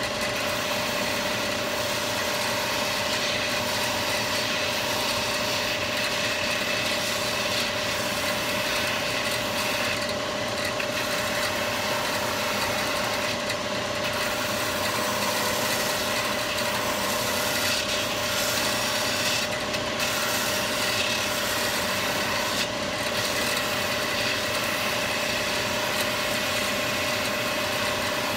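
A shoe-repair finishing machine's electric motor running with a steady hum, with the hiss of abrasion as a shoe is worked against the spinning wheel. The hiss eases briefly a few times.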